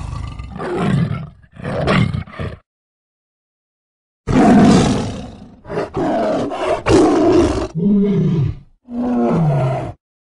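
Tiger roaring in a series of separate loud calls: two, then a silent gap of about a second and a half, then five more, the last two falling in pitch.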